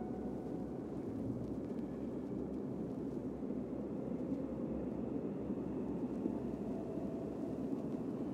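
A steady low rumble with a few faint held tones above it.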